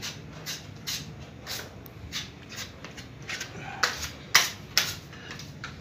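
Putty knife scraping in quick repeated strokes, about two a second, as joint compound is spread and smoothed on drywall; a few strokes a little past the middle are louder.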